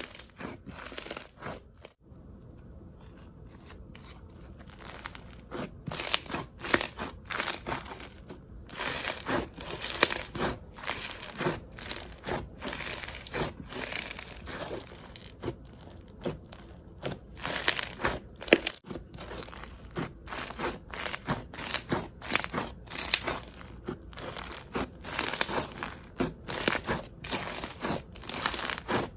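Floam slime packed with foam beads being squeezed and worked by hand, the beads crunching and crackling in quick runs of small pops. There is a quieter lull a couple of seconds in before the crunching picks up again.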